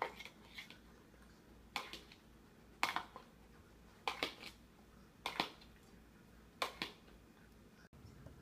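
A series of sharp, light taps or clicks, about one a second, several coming as quick doubles.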